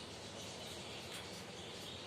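Finches chirping: a few short, faint high chirps over a steady background hiss.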